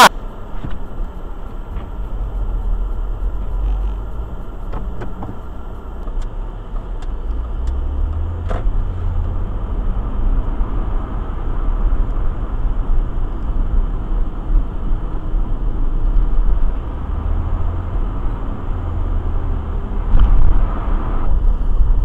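Car heard from inside the cabin while driving slowly on snow-covered streets: a steady low engine and tyre rumble that swells a little now and then, with a few faint clicks and knocks.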